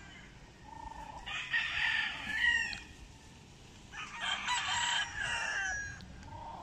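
Gamefowl roosters crowing: two loud crows, the first about a second in and the second about four seconds in, each lasting about a second and a half and trailing off with a falling pitch.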